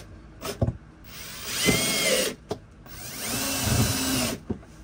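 Power drill running in two bursts, its motor whine rising and then falling, driving screws through thin sheet metal into plywood. A couple of short knocks come before the first burst.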